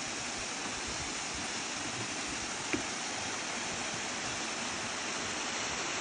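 Steady rushing of a tall waterfall, the Cachoeira do Avencal, cascading down a rock face.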